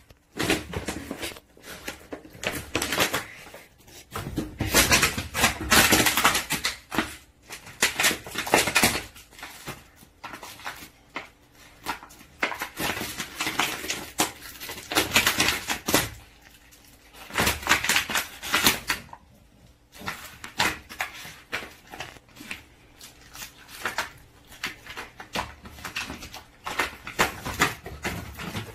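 A French bulldog chewing and crushing an empty plastic PET water bottle: the plastic crackles and crinkles under its teeth in repeated bursts with short pauses.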